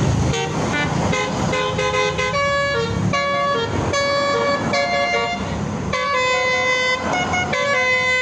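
Indonesian bus 'telolet' horn playing a melody of horn notes that step from pitch to pitch: short quick notes at first, then longer held notes from about two seconds in. A low engine rumble runs beneath it.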